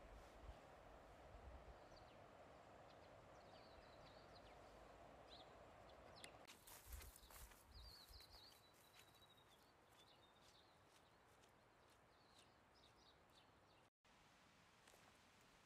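Near silence: a faint even hiss that drops away about six seconds in, a few faint bird chirps, and soft footsteps on a grassy track.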